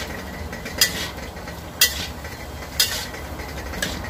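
Cooking utensil stirring soup in a pot, striking the pot with a sharp clink about once a second, four times, over a low steady hum.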